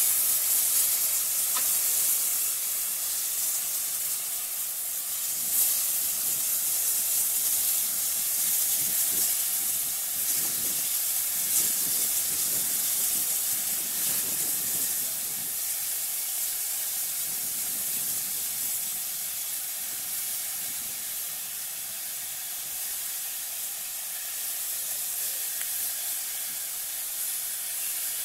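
Steam hissing steadily from GWR 1500 class pannier tank No. 1501. The hiss is loudest at the start and slowly eases off.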